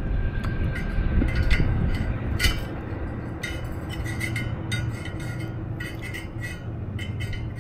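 Screwdriver scraping and clinking against the RV rooftop air conditioner's fan as dried mud dauber nest is picked out of it: irregular sharp metallic clicks and scrapes over a steady low rumble.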